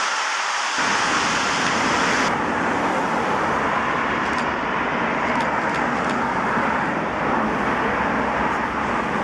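Airbus A340-600's four Rolls-Royce Trent 500 jet engines running as the airliner rolls out along the runway, a steady jet noise that turns deeper about a second in.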